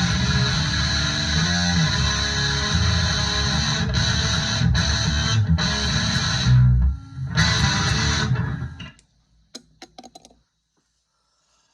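Heavy metal music with distorted electric guitar, breaking into stop-start hits partway through and ending abruptly about nine seconds in. A few faint clicks follow.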